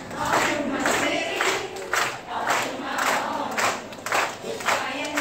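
A large group of children singing together to a steady beat that comes about twice a second.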